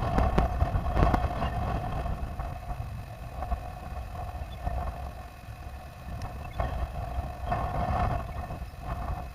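Wind rumbling against a rooftop camera's microphone, with a steady high tone that swells and fades and a few sharp clicks.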